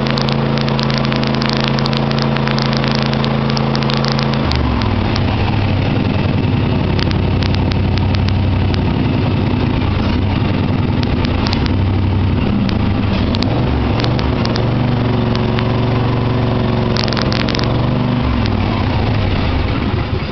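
Small lawnmower engine running with scattered sharp pops and crackles. Its note drops lower about four seconds in, and it shuts off at the very end. It runs rough, which the owner puts down to gunked-up carburetor jets.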